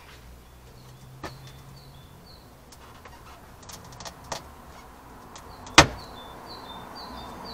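Scattered clicks and knocks of a car's interior trim panel being worked loose and bent aside, with one loud sharp snap about six seconds in.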